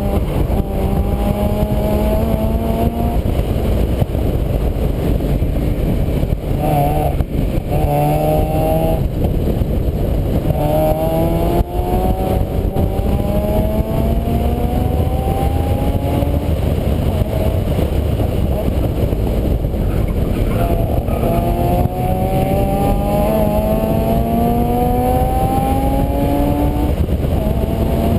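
A vehicle engine pulling up through its gears, its pitch rising steadily for a few seconds and then dropping at each shift, about four times. It sits under a heavy, steady low rumbling noise on a GoPro camera's microphone.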